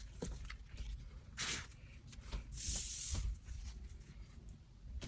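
Paper and plastic rustling as album contents such as photocards and inserts are handled, with light clicks and two louder rustles, a short one about a second and a half in and a longer one about three seconds in.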